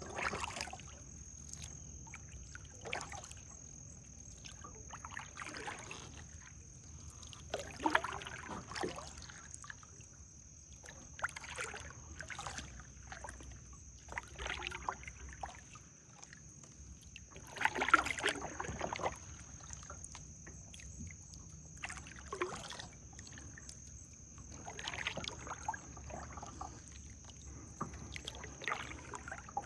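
Kayak paddle strokes dipping and splashing in still water, irregular and a second or three apart, with water dripping off the blade as the kayak is turned in a slow circle.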